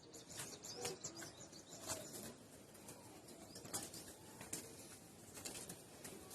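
Faint bird calls with scattered soft clicks and rustles.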